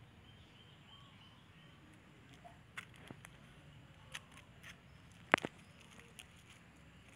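A few light clicks and taps over a faint background hiss, with one sharp, louder click about five seconds in.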